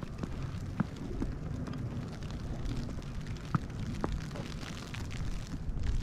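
Blizzard wind buffeting the microphone as a steady low rumble, with a few light clicks at irregular moments.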